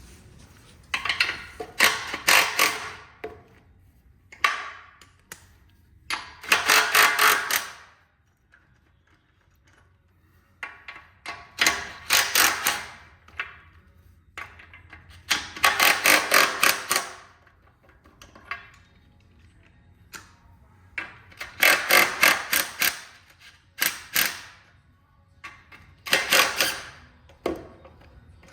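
Impact wrench rattling in short bursts of one to two seconds, about seven times, loosening the lug nuts on the Dayton-style rear wheels of a 1948 Diamond T truck.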